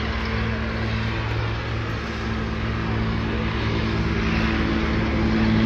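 Propeller engine of a floatplane running steadily, getting louder near the end.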